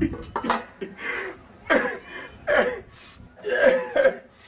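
A person's voice in several short separate bursts with falling pitch, the loudest near the end.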